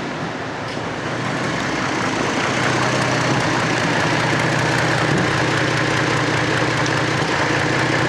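2002 Chevrolet Trailblazer's 4.2-litre straight-six idling low, around 550 rpm, not running smoothly because of a misfire. It grows louder about two seconds in and then holds steady.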